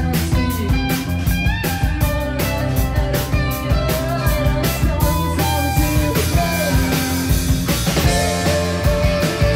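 Live rock band playing: a steady drum-kit beat under bass, electric guitars and a bowed viola.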